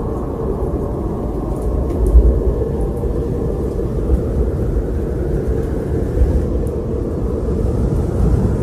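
Wind blowing steadily with a deep rumble, strongest about two seconds in.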